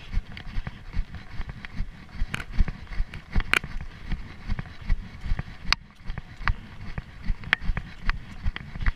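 A runner's footfalls on grassy ground, heard through a chest-mounted camera as a steady rhythm of dull thuds a little under three a second, with scattered sharp clicks.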